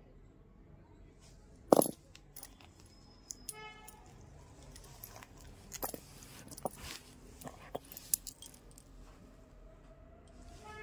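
Metal jhumka earrings clinking and tapping as they are handled: one sharp clack about two seconds in, then scattered light clicks and short metallic rings.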